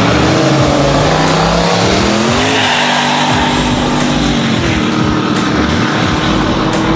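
Race car engine revving hard. Its pitch climbs about two seconds in, then holds steady.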